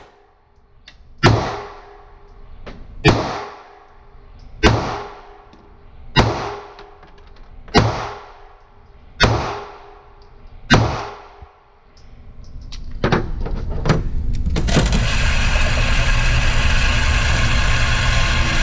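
Springfield Armory Hellcat 9mm micro-compact pistol fired seven times at a steady pace, about one shot every second and a half, each shot echoing off the walls of an indoor range. About thirteen seconds in, a steady mechanical running noise starts and grows louder: the range's target carrier bringing the target back.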